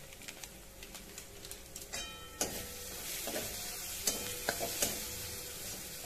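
A steel spatula stirs and scrapes onion, green chili-garlic paste and spice powders frying in oil in a steel kadhai. The food sizzles, and the metal spatula clicks and scrapes against the pan. The stirring gets louder about two seconds in.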